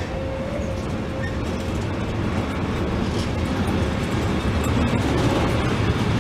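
Container freight train's wagons rolling past at close range: a steady rumble and clatter of wheels on the rails, with a faint thin steady tone in the first half.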